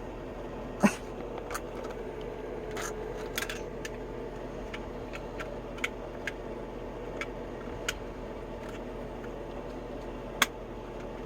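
Scattered sharp metallic clicks and knocks of tools and tap fittings being handled during a bathroom tap installation, the loudest about a second in and again near the end, over a steady low hum.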